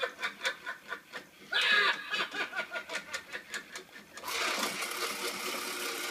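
Animated Halloween grandfather clock with a pop-out grim reaper: the figure's recorded cackle with a rapid clatter of about five clicks a second from its mechanism. About four seconds in, a steady motor whir starts as the clock face swings shut over the reaper.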